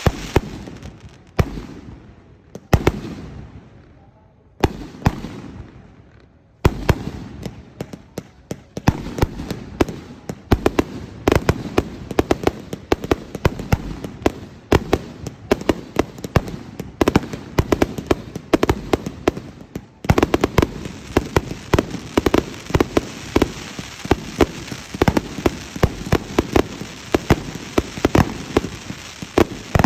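Fireworks shells bursting overhead: a few separate bangs, each trailing off, over the first six seconds, then a rapid, dense barrage of reports that gets even thicker about twenty seconds in.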